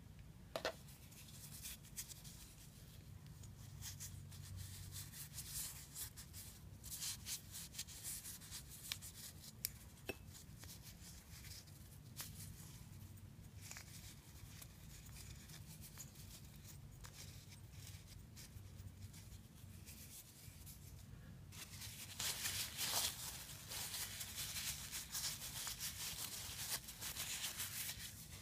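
A cloth rag rubbing over a small toothed gear from a Shimano spinning reel as it is wiped clean, with faint scratchy rustling and light clicks of the part being handled. The scratchiest stretches come in the first half and again near the end.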